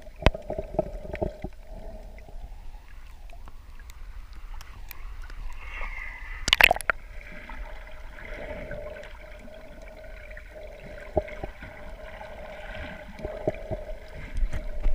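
Water heard underwater over a shallow rocky reef: continuous sloshing, gurgling surge with scattered sharp clicks, and a loud brief cluster of clicks about six and a half seconds in.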